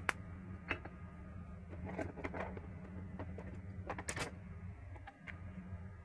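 A handful of light clicks and taps from kitchen utensils and containers being handled, over a steady low hum. The hum dips briefly about five seconds in.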